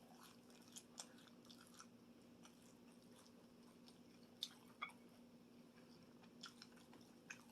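Faint wet mouth clicks of someone chewing a big mouthful of meatball, a few soft smacks scattered over a low steady room hum.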